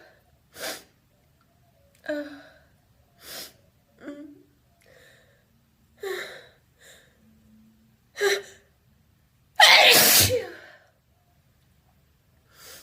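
A person building up to a sneeze with a string of short, sharp gasping breaths, then one loud, open, vocalized sneeze about ten seconds in.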